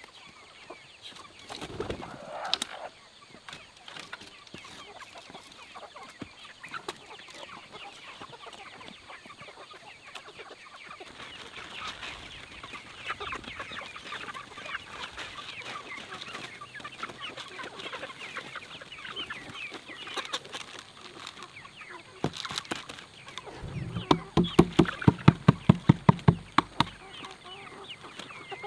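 A flock of chickens clucking as they feed on feed scattered on a tarp, with a dense patter of small quick sounds. Near the end comes a quick run of about a dozen loud knocks.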